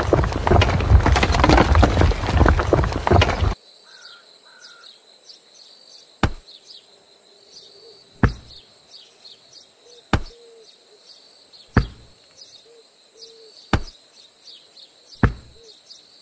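A loud rushing noise cuts off suddenly about three and a half seconds in, leaving faint birdsong. Then six sharp clicks, one every second and a half to two seconds, as miniature clay bricks are set down one by one into a row on sand.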